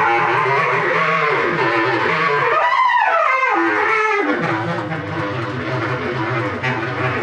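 Bass clarinet played solo: a sustained low tone with many overtones. About three seconds in, the low tone breaks off while a high, shifting glide of overtones sweeps through, then the low tone returns.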